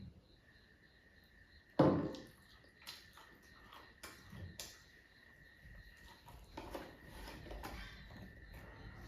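Quiet eating sounds: chewing and small clicks of handling food, with one sharp knock about two seconds in.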